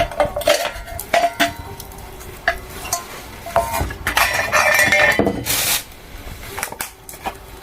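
Metal cookware and utensils clinking and clattering in a series of sharp knocks, with a longer scraping, rushing stretch about four to five seconds in.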